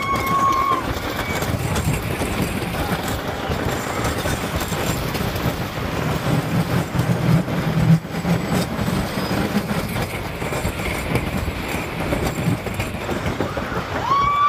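Wooden roller coaster train running along its track: a continuous rattling rumble and rush of air, heaviest about halfway through. A rider's long high-pitched scream trails off just after the start, and another begins near the end.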